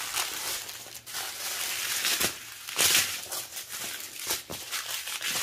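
Small plastic bags of diamond-painting drills being handled: irregular crinkling and rustling of thin plastic, with a few sharper crackles.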